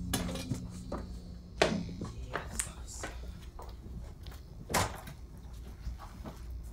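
Scattered knocks and clicks, the two loudest about one and a half seconds and nearly five seconds in, over a low steady hum that fades out after about two seconds.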